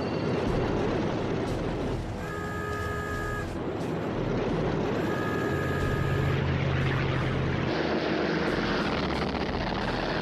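Propeller aircraft engines running in a steady, dense roar. A short steady tone of several notes sounds twice, a couple of seconds in and again about three seconds later.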